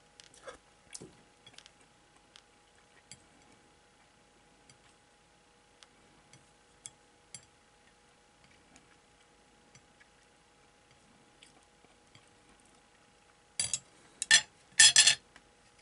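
Chopsticks clicking lightly against a metal spoon and plate, then near the end a loud clatter of cutlery on the plate in three quick bursts.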